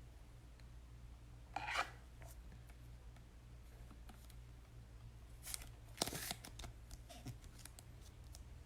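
Faint, brief scraping and rustling of trading cards and their packaging being handled, a few times, over a steady low hum.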